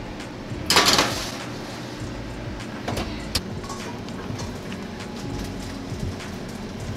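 A sheet pan of potatoes going into the oven: a short, loud scrape of metal about a second in, then a few light knocks over a low steady hum.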